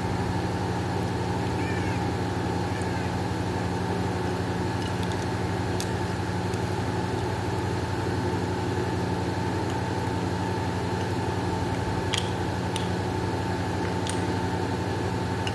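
Steady mechanical hum at an even level, with a few faint short high calls about two seconds in and a few light clicks later on.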